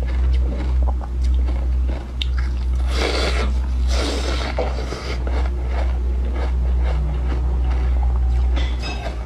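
Teeth biting and crunching into a block of frozen milk ice, with two loud crunches about three and four seconds in and small crackling clicks of chewing around them. A steady low hum runs underneath.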